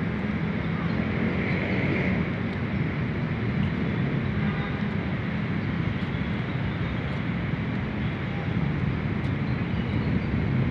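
Steady outdoor background rumble: a low, even noise with a hiss above it and no single event standing out.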